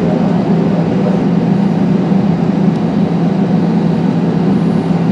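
Jet airliner cabin noise while taxiing: a loud, steady rumble with a strong low hum.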